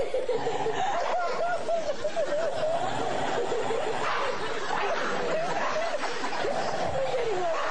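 A dog growling in a long, unbroken grumble that wavers up and down in pitch: a resource-guarding growl at its own paw over a bone.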